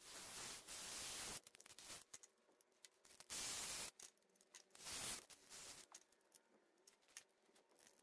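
Cordless drill with a 1-3/8" step bit cutting a hole through a plastic electrical box, in three bursts of rasping: a longer one at the start, then two shorter ones around three and five seconds in. Fainter scraping and handling of the box follow.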